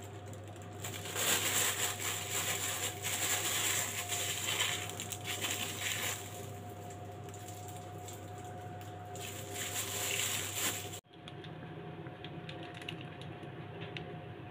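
Clear plastic piping bag crinkling and rustling in uneven bursts as it is twisted and squeezed around soft cookie dough; the noise stops abruptly about eleven seconds in, leaving a faint steady hum.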